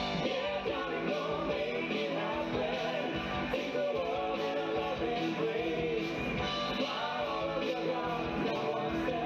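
Live band playing upbeat rock and roll, with sung vocals over guitars and drums.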